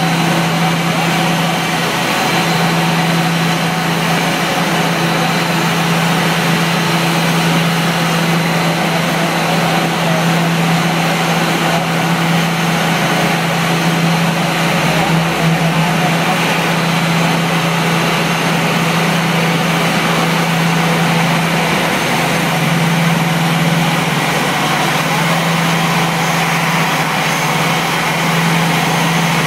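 Aircraft pushback tug's engine running steadily while it tows an Airbus A340-300 by a towbar on the nose gear. It makes a constant low hum over a steady hiss of ramp noise.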